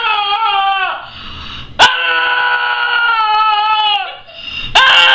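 Small long-haired dog screaming: long, drawn-out high-pitched cries, each falling off at its end. One cry trails off about a second in, another starts abruptly near two seconds and dies away near four, and a third begins near the end.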